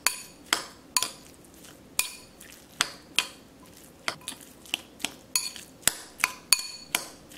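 A metal spoon clinking against a ceramic bowl while stirring a ground-pork filling: sharp, irregular clinks, each with a brief ring, coming faster in the second half.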